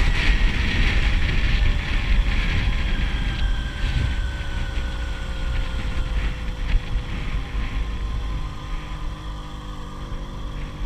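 Motorcycle engine running with wind rushing over the microphone; the engine note falls slowly as the bike eases off, and the wind noise fades.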